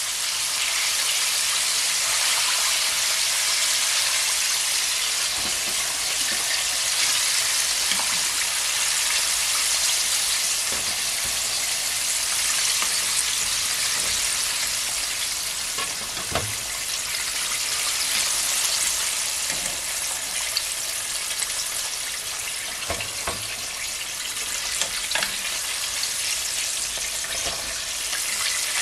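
Chicken pieces deep-frying in hot oil, a steady crackling sizzle, with a few light knocks of metal tongs against the pot as the pieces are turned and lifted out.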